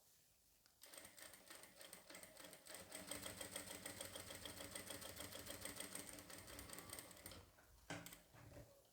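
Jack F4 industrial lockstitch sewing machine running, stitching cloth in a fast, even rhythm from about a second in, then stopping near the end. A short knock follows.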